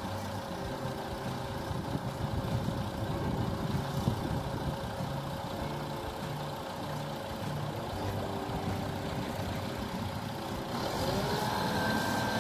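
Diesel engine of an XCMG HB37K concrete pump truck running steadily, its hum shifting in tone every second or two. About eleven seconds in it rises in pitch and gets louder.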